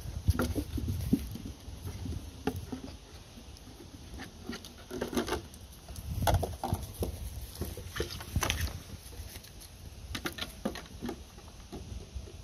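Puppy mouthing and knocking a red plastic tub about: irregular plastic clicks, knocks and scrapes, with a few low thumps.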